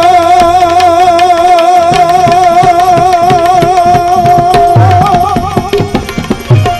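Gujarati devotional bhajan music. A voice holds one long note with a wide vibrato over a steady held note and tabla strokes. The held note wavers higher and breaks off about five seconds in.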